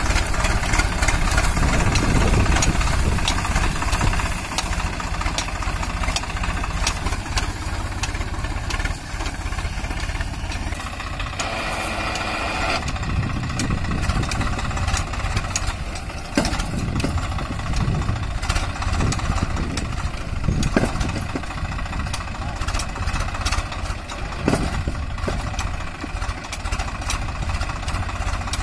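Swaraj 744 FE tractor's three-cylinder water-cooled diesel engine running steadily under load while it works a rear rotary tiller through field stubble, with many short clicks and knocks over the engine sound.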